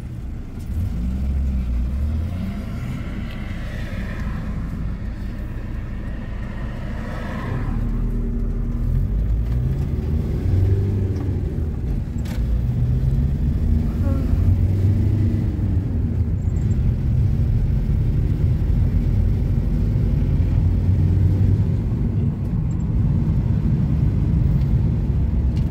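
Road noise inside a moving car: a steady low rumble of engine and tyres on the road, growing a little louder about eight seconds in.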